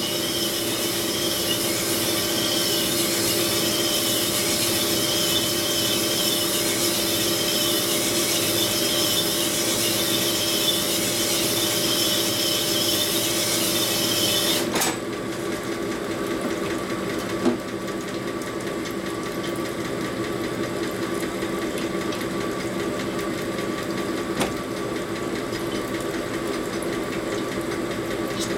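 Sunnen horizontal honing machine running, its stones grinding the cast iron cylinder bore of a 1942 Harley-Davidson XA flathead with a loud, steady rasp while the cylinder is stroked over the mandrel to take the taper out of the bore. About halfway through the grinding cuts off sharply and only the machine's motor hum remains, with a couple of light clicks.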